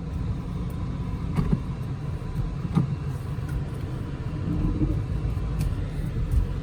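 Car driving off, a steady low rumble of engine and road noise with a couple of sharp knocks.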